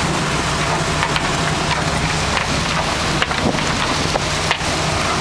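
Boat engine running steadily under a constant rush of water from the churning wake.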